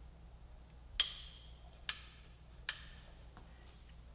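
Three sharp clicks about a second apart, the first the loudest with a short ring: metal parts of a motorcycle's rear-axle chain adjuster being worked by hand as the chain slack is set.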